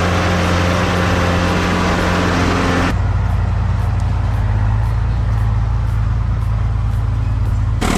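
Heavy machinery engines running steadily under load. About three seconds in, the sound cuts abruptly to a different, deeper engine drone, and it changes abruptly again near the end.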